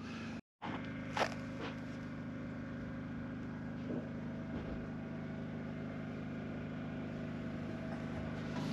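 A steady low machine hum, as from a motor or generator running, with a couple of faint clicks about a second in.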